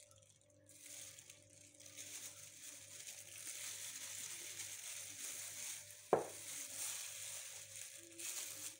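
Faint rustling of plastic-gloved hands as they handle a glass soy sauce bottle and then work seasoned minced meat in a glass bowl, with one sharp knock about six seconds in.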